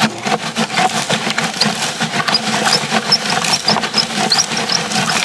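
Steel toy construction truck scooping and pushing gravelly dirt: a continuous rapid scraping and clicking, with a wavering low hum underneath.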